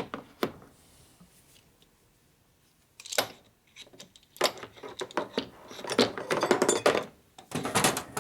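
Metal tool clinks and rattles as a brake line flaring tool is handled: two sharp clicks at the start, then a run of clanks and rattles from about three seconds in.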